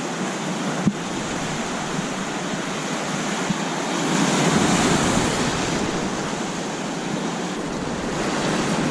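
Surf washing on a beach, a steady rush that swells about four seconds in, with wind buffeting the microphone.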